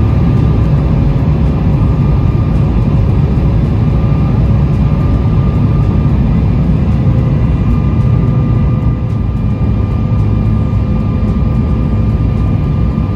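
Steady cabin noise of a jet airliner on descent, heard from a window seat: a low engine drone with rushing air, and a faint steady whine over it.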